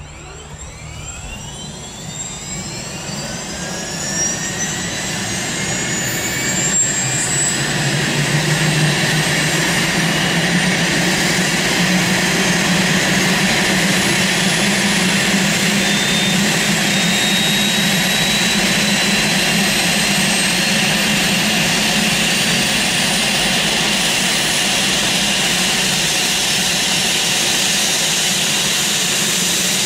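Airbus H145 air ambulance helicopter's turbine engines starting up: a whine that rises in pitch and grows louder over the first eight seconds or so, then holds as a steady high turbine whine as the rotor runs.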